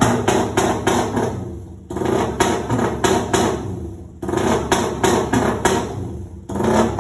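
An engine revved in about three surges, each starting suddenly and dying away over a couple of seconds, with a rapid clattering beat through each surge.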